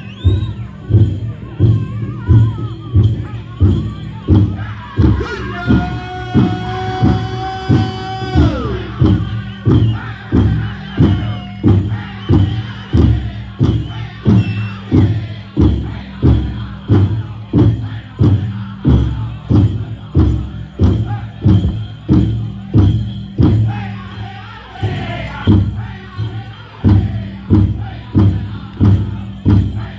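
Powwow drum group playing a chicken dance song: a big drum struck together in a steady, even beat, with high-pitched group singing that holds long notes and falls off, and the jingle of the dancers' leg bells over it.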